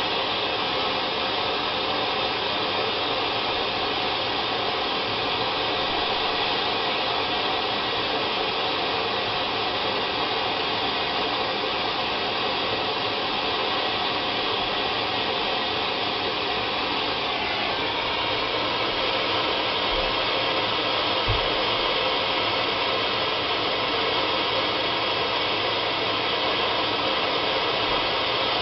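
Handheld gas torch burning with a steady hiss while soldering copper ground-loop tubing.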